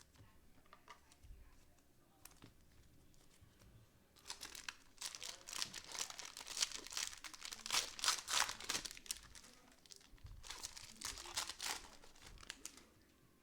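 Plastic wrapper of a trading card pack being torn open and crumpled by hand, in two bursts of crinkling after a few quiet seconds.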